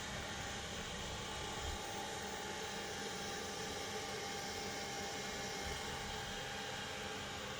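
Dreame D9 robot vacuum cleaner running: a steady whir of its suction fan, with a thin constant whine.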